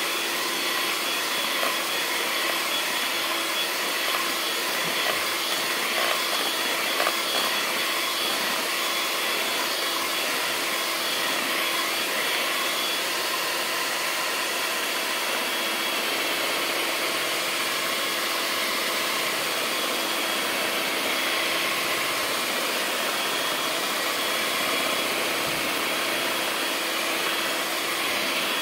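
Electric hand mixer running steadily at one speed, its beaters whisking eggs and sugar into a froth in a bowl, with a constant motor hum and a few light clicks of the beaters early on.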